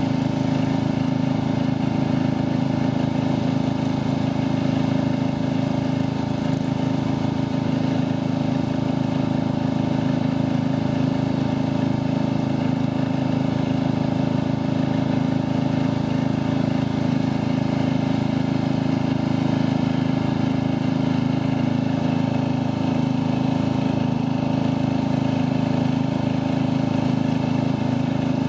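Ride-on lawn tractor engine running steadily under way, heard up close from the driver's seat as the tractor is driven across grass.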